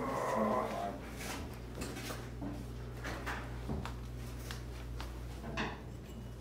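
Scattered light knocks and rustling over a steady low hum, with a scraping sound in the first second.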